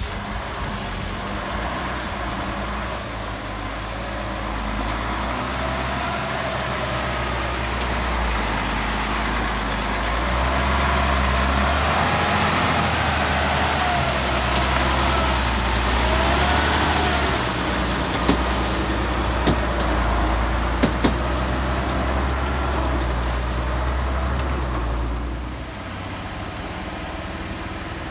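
Diesel engine of a timber-laden Volvo flatbed truck pulling slowly along a steep, muddy track. It grows louder as the truck comes close, with a faint whine rising and falling in pitch and a few sharp knocks. Near the end it drops suddenly to a quieter, more distant engine sound.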